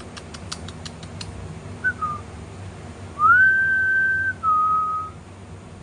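A person whistling a few notes: a short falling chirp, then a note that rises and holds for about a second before dropping to a lower held note. In the first second there is a quick run of light clicks.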